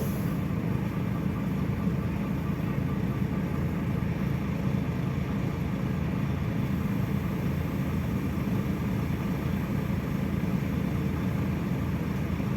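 Heavy diesel engine running with a steady low drone that holds evenly throughout.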